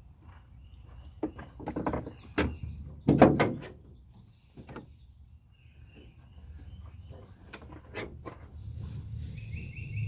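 A few clunks and rattles of parts and tools being handled under the hood, loudest about two to three seconds in, with lighter clicks later. Birds chirp in the background.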